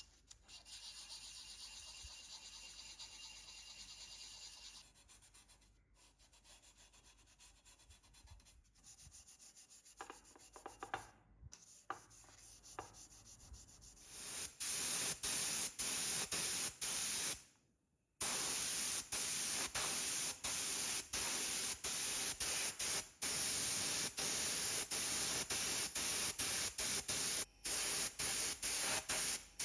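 A steady scraping hiss that becomes much louder about halfway in, chopped by many brief cuts, with a few clicks shortly before it swells.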